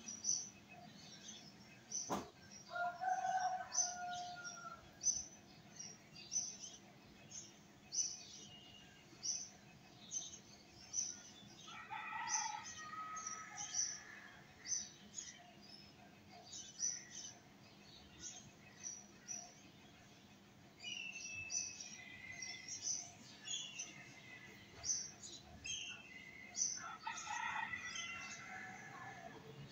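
Birds chirping with short high chirps about once a second, and now and then a longer call that glides in pitch; a single sharp click about two seconds in.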